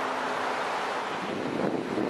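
Steady rushing noise of wind on the microphone, with uneven low buffeting that grows stronger from about halfway through.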